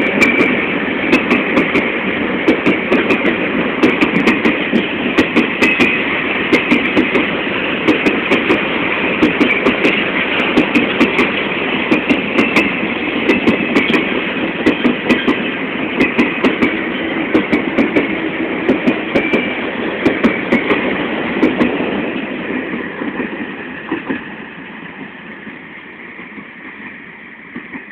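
Freight train of steel mineral hopper cars rolling past, the wheels clacking over rail joints in regular quick clicks over a steady rumble and high rail hiss. The sound fades away about 22 seconds in as the end of the train passes.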